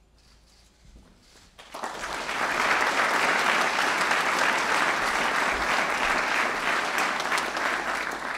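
Audience applauding: clapping breaks out nearly two seconds in, quickly swells to a steady level, and begins to die away at the very end.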